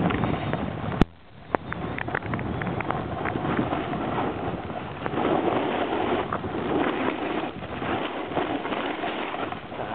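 Snowboard riding down a snow slope: the board's edge scraping and hissing over the snow, with wind rushing on the microphone. A sharp click sounds about a second in.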